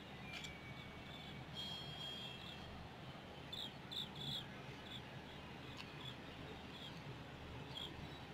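Quiet outdoor ambience of scattered short, high chirps over a steady low hum, with one held whistle-like note about two seconds in and a quick run of chirps near the middle.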